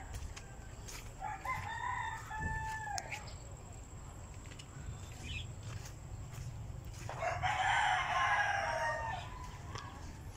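Two rooster crows: a fainter one starting about a second in, and a louder one about seven seconds in.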